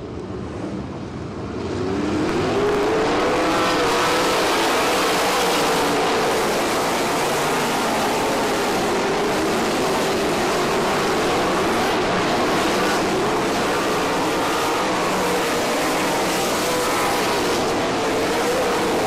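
A pack of 360 sprint car engines running at full throttle as the cars race past. The sound swells about two seconds in, then holds loud and steady, with the engine pitch wavering up and down.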